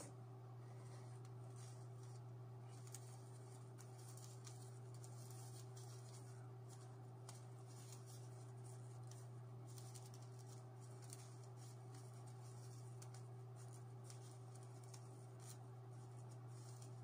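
Near silence: a steady low hum, with faint small ticks and rustles of things being handled at a desk.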